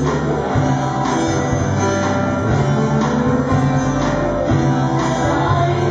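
Live church band playing a gospel worship song, with guitar to the fore over a moving bass line, in a stretch where the singing group is barely heard.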